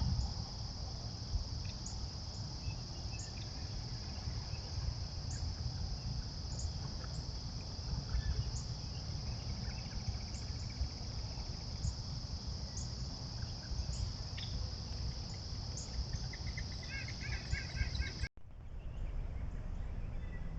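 Insect chorus of crickets: a steady high-pitched trill over a low rumble. Near the end there is a brief burst of rapid chirping. The sound drops out for a moment about eighteen seconds in and comes back with the insects fainter.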